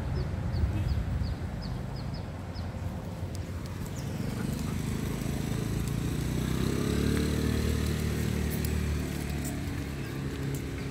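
A motor vehicle's engine approaching and passing, building from about four seconds in, loudest near the middle and fading toward the end, over a steady low rumble.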